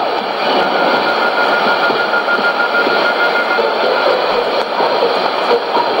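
Shortwave AM reception on 7330 kHz through a Sony ICF-2001D receiver's speaker: a weak signal buried in heavy static hiss, with a faint broken whistle for about three seconds early on.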